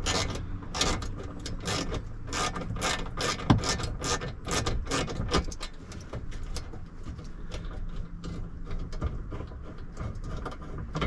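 Hand ratchet wrench clicking as it backs out small bolts, about two clicks a second at first, then quicker and fainter in the second half.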